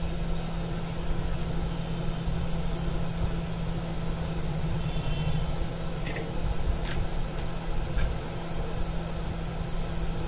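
Steady electric fan or blower hum from workbench equipment, with three small sharp clicks about six to eight seconds in.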